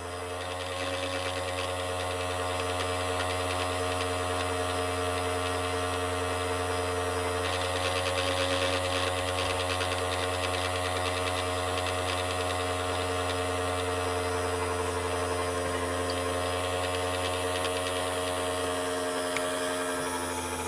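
Small electric motor running steadily with an even hum and whir, driving the magnetic drive under a model canal that pulls magnet-fitted model boats along.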